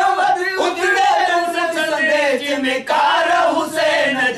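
Men's voices singing a devotional naat together without instruments, in long drawn-out, wavering phrases.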